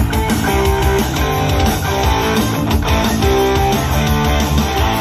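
Guitar-led music with heavy bass played through JBL Xtreme 3 and JBL Charge 5 portable Bluetooth speakers linked in PartyBoost, their fabric grille covers removed so the drivers are bare.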